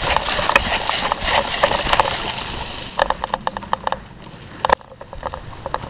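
Close scraping and rattling with many small clicks, loudest for the first two seconds and then fading, followed by scattered sharp clicks and a single knock near the end.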